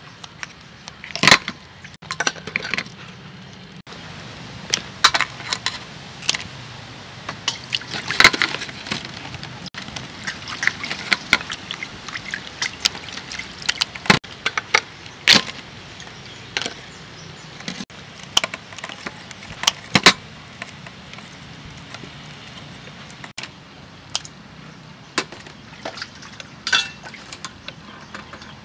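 Food-preparation handling: irregular sharp knocks and clinks, dozens of them scattered unevenly, over a steady low background hiss.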